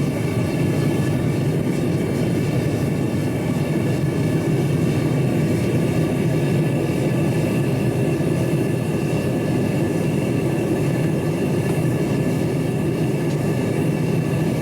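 Small forge running with a steady, even noise and a few faint high tones above it, while a steel gear hob heats toward red for hardening.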